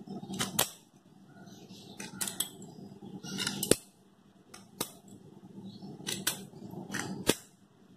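Small scissors snipping slits into the thin aluminium wall of a drink can, about nine sharp metallic snips at irregular intervals, roughly one a second.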